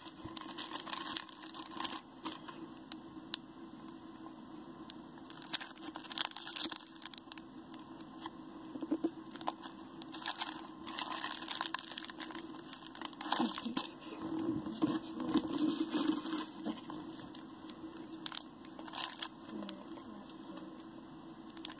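Plastic packaging crinkling and tearing in irregular bursts as trading card products are unwrapped and handled.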